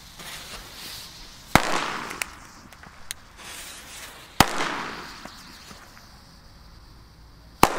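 Three Lesli Shocks category F2 firecrackers going off one after another, about three seconds apart: each a single sharp, loud bang followed by a short echoing decay.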